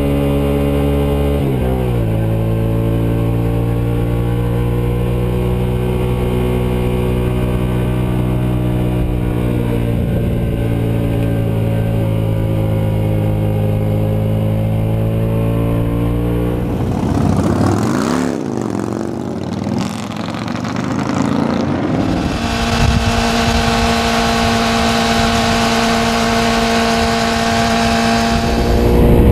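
Motorcycle engine running at a steady cruise, heard from on board. Its pitch drops about two seconds in, and between about 17 and 22 seconds it swoops up and down before settling to a steady note again.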